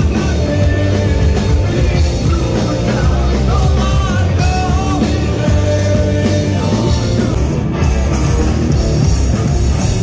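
A rock band playing live and loud, a male singer singing into a microphone over drums and amplified guitar.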